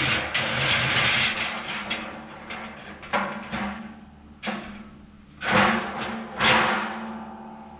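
Scraping, then five separate knocks a half second to a second apart, each dying away briefly: heavy stone or metal parts being shifted and set in place.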